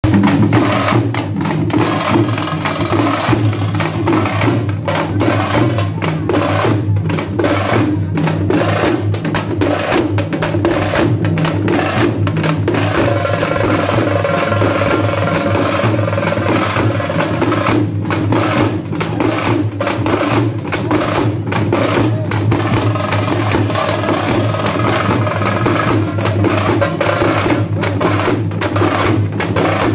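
Loud, fast folk drumming that goes on without a break. A held wind-instrument melody comes in about halfway through and again near the end.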